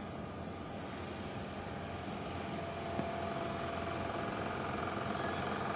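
Steady mechanical drone of engines and plant, with a faint steady whine in it, slowly getting louder.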